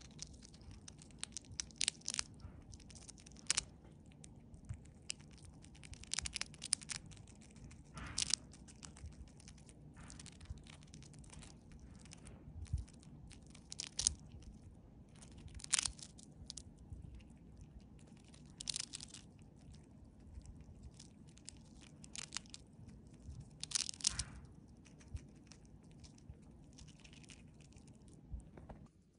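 Siberian chipmunk biting and chewing a crisp dried vegetable chip: irregular crackly crunches, some sharp and loud, over a faint steady low hum.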